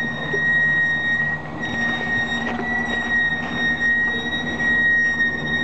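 Truck-mounted crane running while it holds a lifted aircraft radial engine: a steady engine drone with a constant high whine over it, and a few faint knocks.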